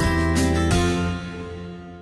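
Background music of plucked strings, a last strum a little under a second in, then the music fading out toward the end.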